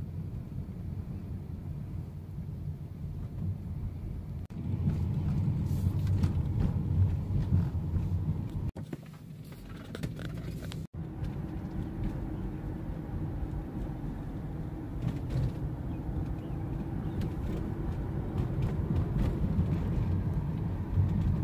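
Car driving slowly, heard from inside the cabin: a steady low engine and road rumble, louder from about four seconds in, cutting out briefly twice near the middle.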